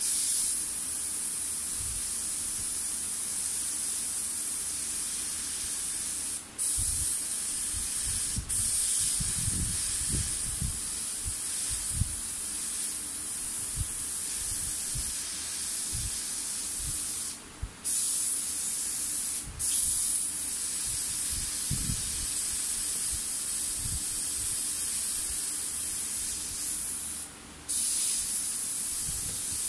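Gravity-feed airbrush spraying red paint onto a small fishing lure: a steady high hiss of air that breaks off briefly several times as the trigger is let go, with soft low knocks now and then.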